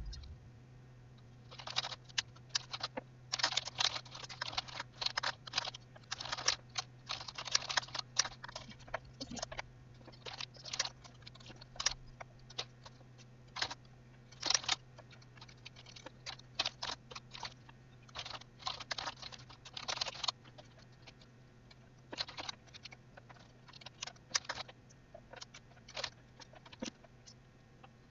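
Typing on a computer keyboard: irregular runs of quick keystroke clicks with brief pauses between them.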